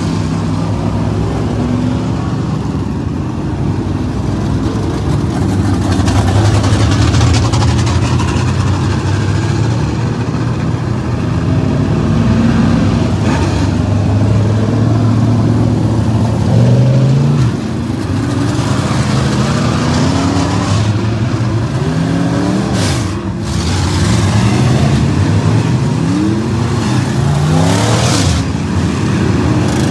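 Dirt modified race cars' engines running hard on a dirt oval: a steady engine drone with repeated rising engine notes as cars accelerate out of the turn, loudest as one car passes close by about halfway.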